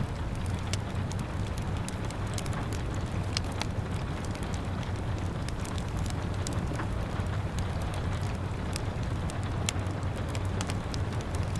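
Wood fire crackling, with many short, irregular sharp pops over a steady hiss of rain and a low rumble.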